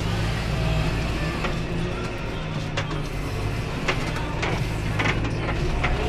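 John Deere tractor's diesel engine running steadily under way, heard from inside the cab, with scattered short knocks and rattles.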